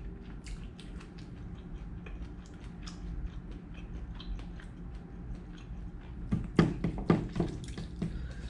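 Metal fork clicking and scraping against a plastic takeaway tub while noodles are tossed, with small scattered clicks and a cluster of sharper knocks about six to seven seconds in, over a steady low room hum.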